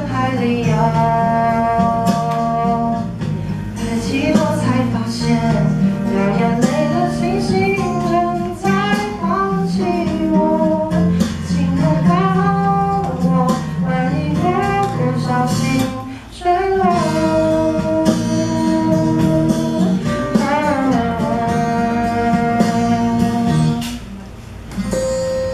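A Mandarin pop song playing: a melody of held notes with slides and vibrato over a guitar and bass backing track. It drops out briefly about two-thirds of the way through and again near the end.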